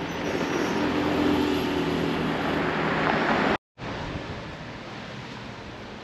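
A motor vehicle's engine and road noise passing close, building for about three seconds. The sound cuts out abruptly about three and a half seconds in, leaving a quieter steady outdoor hiss.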